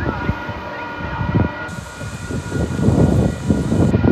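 Horn of an approaching Metrolink commuter train sounding one long, steady chord, over irregular low rumbles that are loudest about three seconds in.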